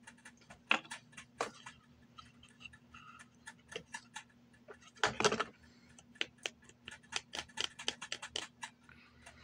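Small plastic cosmetic bottles and caps being handled: many quick, irregular clicks and taps, with a louder rustling scrape about five seconds in, over a faint steady hum.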